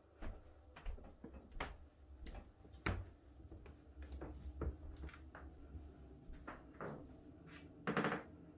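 Handling noise from a hand-held phone being carried through rooms, with footsteps: irregular clicks and knocks over a low rumble. A short, louder pitched squeak or creak comes near the end.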